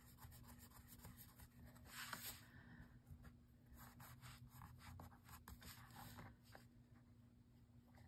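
Faint rustling and rubbing of paper and card as hands handle and turn the pages of a handmade journal, with a slightly louder rustle about two seconds in.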